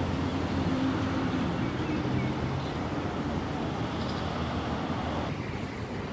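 Steady rumble of a motor vehicle engine running nearby, with a low hum, easing slightly about five seconds in.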